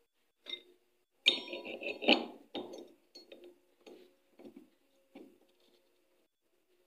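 Small metal parts clinking and knocking as they are handled, with a loud cluster of clinks and ringing about a second in, then scattered lighter clicks that die away.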